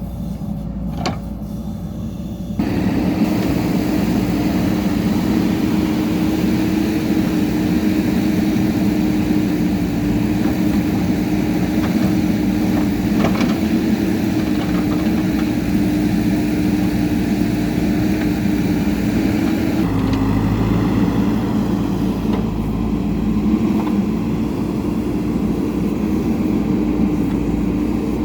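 Diesel engine of a JCB 3DX backhoe loader running steadily, stepping up louder about two and a half seconds in and shifting in tone about twenty seconds in.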